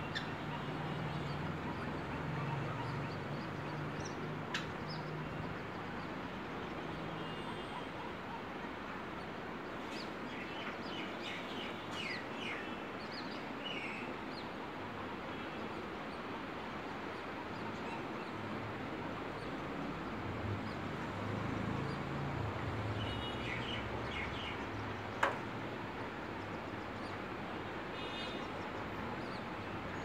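Short, high bird chirps and peeps in scattered clusters over a steady background hum and hiss, with one sharp tap late on.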